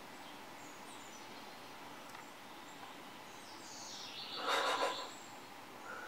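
Quiet outdoor ambience with faint, short, high bird chirps, and one louder rasping sound made of rapid pulses, lasting about a second, about four and a half seconds in.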